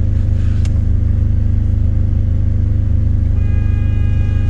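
A diesel engine idling with a steady low rumble, heard inside a semi truck's cab. There is one sharp click about half a second in, and a faint high steady tone joins about three seconds in.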